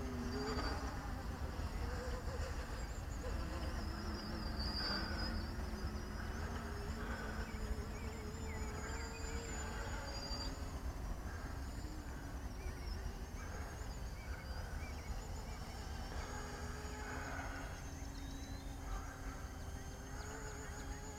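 Electric motors and propellers of a radio-controlled Convergence VTOL model aircraft flying in airplane mode, a steady whine that drifts up and down in pitch as the throttle changes.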